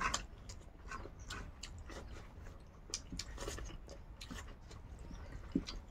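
Two people chewing rice and vegetable dishes eaten by hand, with wet lip-smacks and many short irregular mouth clicks.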